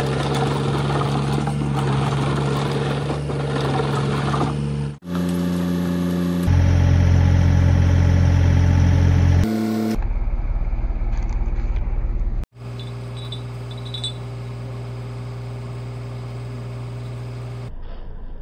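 Kubota KX040-4 mini excavator's diesel engine running, heard as a series of short spliced clips; the steady engine note changes in pitch and loudness at each abrupt cut.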